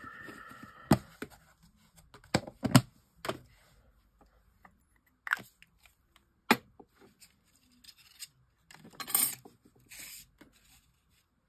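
Die-cut card pieces, papers and small craft tools being handled on a cutting mat: scattered light taps and clicks with paper rustling, and a louder scuffing rustle about nine seconds in.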